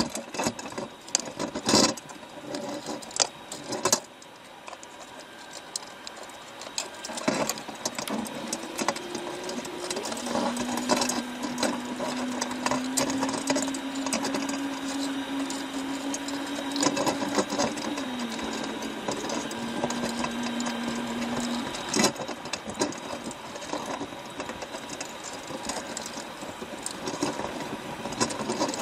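Crab-boat deck machinery under load: a hydraulic whine that starts about a third of the way in, creeps up slightly in pitch, steps down and cuts off, over a steady wash of sea and wind. Sharp metal clanks of the steel crab pot knocking on the rail and sorting table, the loudest near the start and just after the whine stops.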